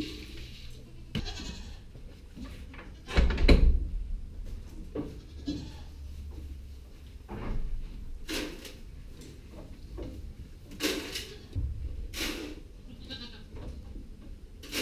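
Nigerian Dwarf goats bleating, among a series of knocks and bumps; the loudest is a heavy thump about three seconds in.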